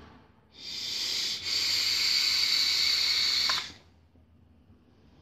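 A long draw on an e-cigarette through a Herakles tank: a loud steady hiss of air pulled through the firing coil, with a brief break about a second and a half in, cutting off sharply after about three seconds. A faint exhale of vapour follows.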